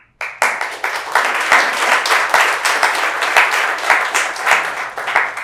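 Audience applauding: many hands clapping together, starting a moment in and keeping up steadily.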